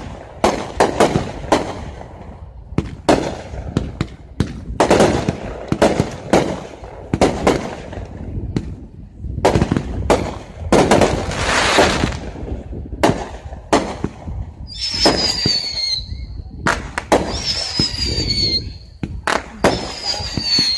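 Aerial fireworks display: a rapid run of bangs and crackling from bursting shells. Near the end come three shrill whistles, each falling slightly in pitch.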